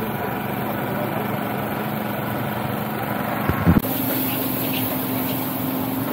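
A steady mechanical hum like an idling engine, with a short low thump about three and a half seconds in. The sound changes abruptly just after the thump.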